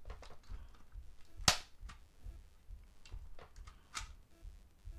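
Sharp plastic clicks of a British three-pin plug being forced into a travel adapter's socket, which needs a firm push to go in: one loud snap about a second and a half in, and a smaller click near four seconds.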